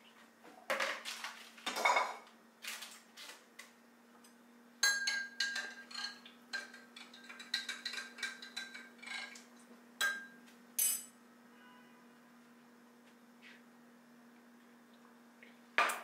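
Kitchenware clattering: a metal utensil knocking and clinking against a stainless steel pot and a glass. The clinks come in an irregular string, some of them ringing briefly, over the steady low hum of a refrigerator.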